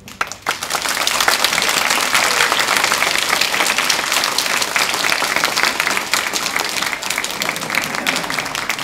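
An audience applauding: many people clapping, starting suddenly, then holding steady and easing slightly near the end.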